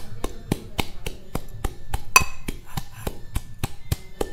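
Metal pestle pounding chopped green chillies in a small metal cup, an even run of sharp knocks about four a second, some with a brief metallic ring, the loudest about two seconds in.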